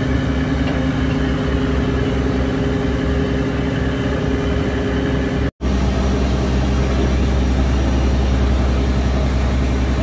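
Fishing trawler's diesel engine running steadily while under way. About halfway through, the sound cuts out for an instant and comes back as a deeper, steadier drone.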